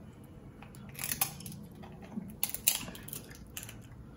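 Scissors snipping and cracking through a cooked prawn's shell: a run of short, crisp snips, the loudest a little past halfway.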